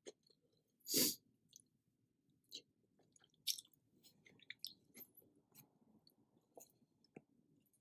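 Close-up eating sounds: a person chewing, with soft wet mouth clicks, and one loud, brief, noisy mouth sound about a second in.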